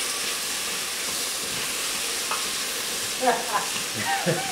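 Beef cubes sizzling as they fry with garlic and ginger paste in a steel pot, while a wooden spoon stirs and knocks against the pot in scattered short ticks. A brief voice sound comes in near the end.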